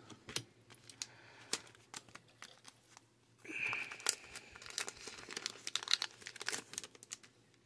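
Foil booster-pack wrapper crinkling and rustling as it is handled and the trading cards are pulled out, with light clicks and snaps. The crackling gets denser about three and a half seconds in and stops shortly before the end.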